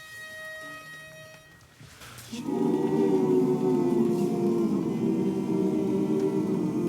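A single steady reed-like note, briefly broken twice, gives the starting pitch. About two seconds in, an a cappella barbershop chorus of men's voices comes in with a sustained, held chord, which is the loudest sound.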